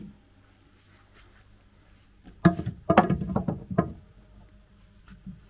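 Rough lava rock chunks knocking against each other and the driftwood as they are set in place: a quick, irregular cluster of knocks about halfway through.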